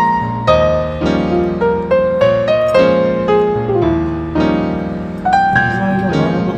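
Background piano music: a melody of struck notes, about two a second, over lower chords.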